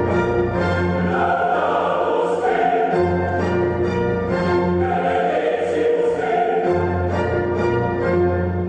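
Classical choral music: a choir singing held chords with orchestral accompaniment over a sustained bass line.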